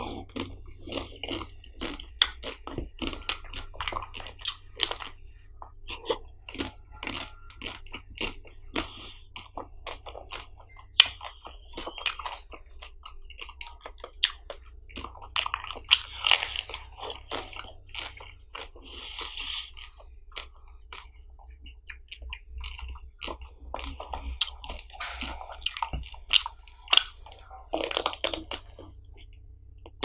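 Close-miked biting and chewing of ice cream bars with hard chocolate coatings: many sharp cracks and crunches of the shell as it breaks, in bursts with short pauses between bites, and moist chewing between them.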